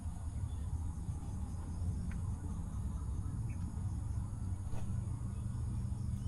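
Insects chirring steadily and high-pitched, over a steady low rumble.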